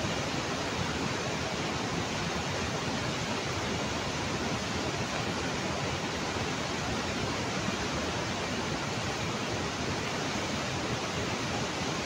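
Steady rushing of a river in flood, a swollen muddy torrent running high, with no breaks or single events.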